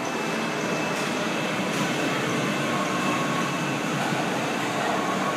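Family roller coaster train rolling along its steel track as it moves off from the station: a steady rolling noise with a faint high whine.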